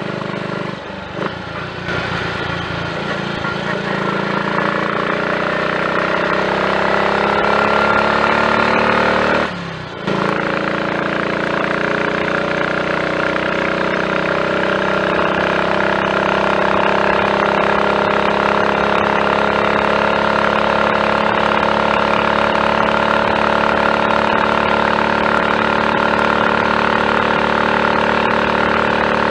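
Triumph Tiger Cub's single-cylinder four-stroke engine on the road, climbing in pitch as the bike accelerates, a short break about ten seconds in as it shifts up, then running steadily at cruising speed. It pulls cleanly with no misfiring, running on a newly fitted carburettor slide, needle, needle jet and main jet after running rich.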